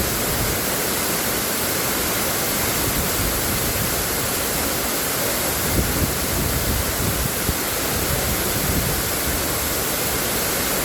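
Rushing water: a steady, loud, even rush with no break.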